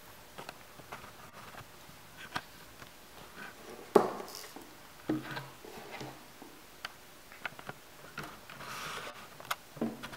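Hands handling a tablet stand and tablet on a wooden table: scattered clicks and knocks, the loudest about four seconds in. Near the end the tablet is slotted into the stand's dock port.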